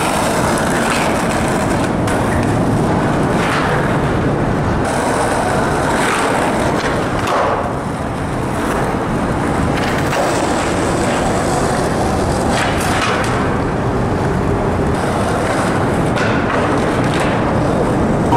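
Skateboard wheels rolling over rough asphalt, a steady grinding noise, with a few sharp clacks of the board along the way.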